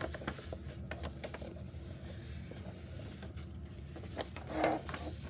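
A sheet of paper rustling and being creased as it is folded in half, with small scattered crackles as fingers press the fold flat. A brief, slightly louder rustle comes near the end.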